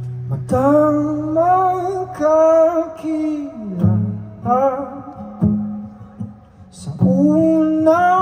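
A man singing into a microphone while accompanying himself on a strummed acoustic guitar; the voice comes in about half a second in and runs in sung phrases with short breaks between them.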